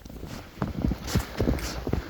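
Footsteps in snow: boots crunching in several uneven steps.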